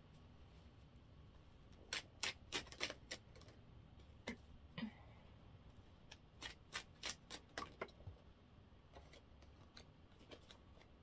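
Tarot cards being handled on a table, making faint, sharp clicks and taps in short runs of several a second with pauses between.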